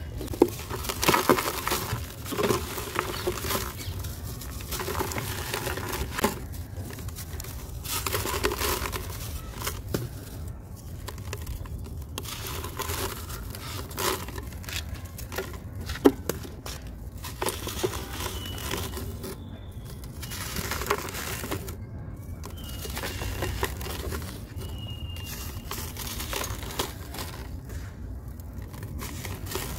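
A dry, gritty sand block crushed and crumbled by hand, the crumbs and grit falling into a plastic tub: uneven crunching and rustling with a few sharp snaps, then softer scraping as fingers stir the crumbs.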